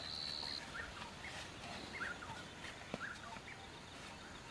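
Wild birds calling faintly: a high, steady whistled note lasting about half a second at the start, then a scatter of short chirps.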